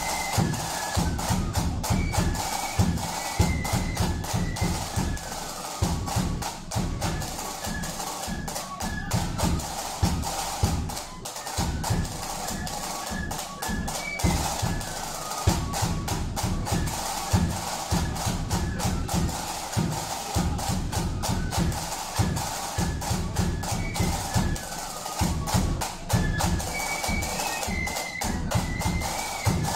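Flute band playing a march: flutes carrying a stepping tune over rapid side-drum strokes and a beating bass drum.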